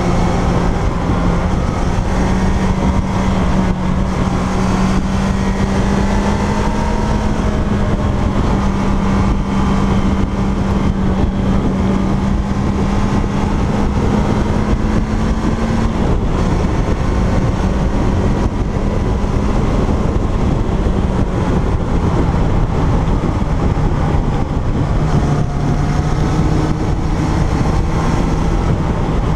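Kawasaki Zephyr's air-cooled inline-four engine running at steady cruising revs while riding, under heavy wind and road noise. The engine note climbs slightly through the first half, then drops back in steps over the second half as the bike eases off.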